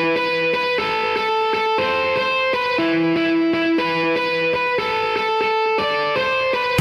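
Background music: a melody of sustained, plucked guitar-like notes.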